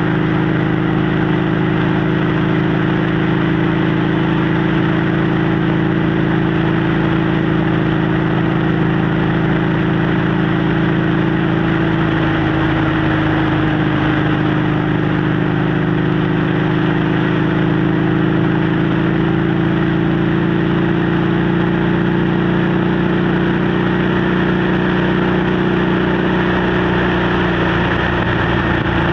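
Motorcycle engine and exhaust running at a steady cruise, its pitch holding nearly constant, under a continuous rush of wind over the microphone.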